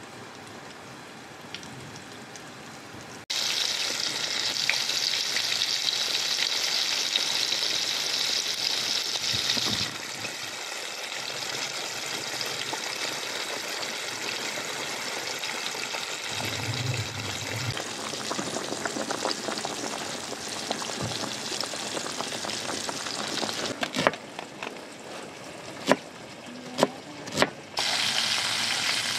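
Breadcrumbed small fish frying in hot oil in a pan: a steady, high sizzle that gets suddenly louder about three seconds in, eases off somewhat later, and rises again near the end. A few sharp clicks sound shortly before the end.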